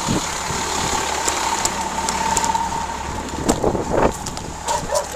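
Vehicle engines idling with traffic noise, picked up by a police body-camera microphone. A steady high tone runs through the first three seconds, and a few short muffled sounds come near the end.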